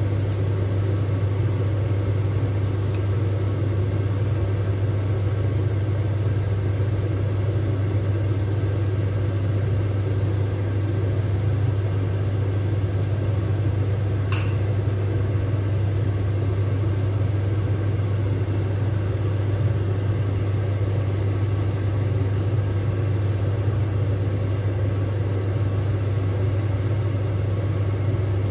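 Steady low mechanical hum, unchanging throughout, with one brief click about halfway through.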